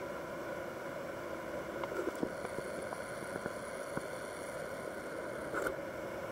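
Waterfall swollen by heavy rain, its whitewater rushing steadily over the rocks. A few light knocks sound over it about two seconds in and again near the end.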